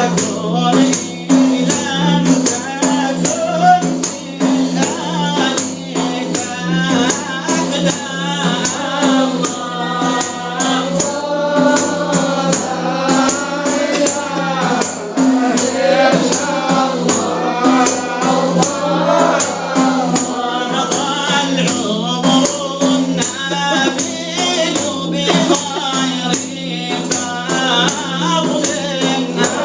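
Sufi devotional chant (inshad): voices singing in unison over a steady low drone, with a frame drum keeping a regular beat.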